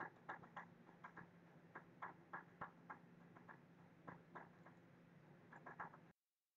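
Faint, irregular clicking of a computer mouse, some clicks in quick pairs, over a low steady hum. The sound cuts out completely about six seconds in.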